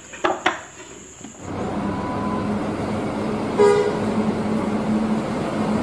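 A coach bus engine running steadily, with one short blast of the bus horn a little past the middle.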